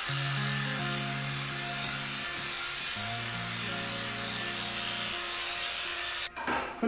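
Electric pet clipper with a 19 mm clip-comb attachment running steadily as it shaves a dog's coat, with a high buzz that stops abruptly near the end. Background music plays under it.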